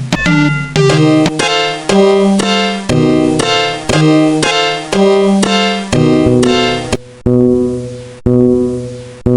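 Music: a piano-like keyboard tune of struck, decaying notes about two a second, slowing to one note a second near the end.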